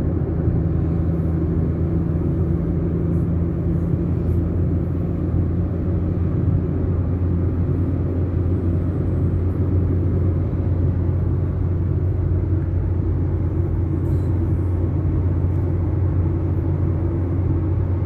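Steady low rumble of a running vehicle engine, with a constant low hum.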